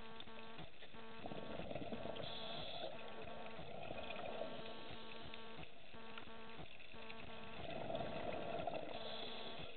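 Underwater, a scuba diver's regulator releasing bursts of exhaled bubbles, three times, over a steady buzzing hum.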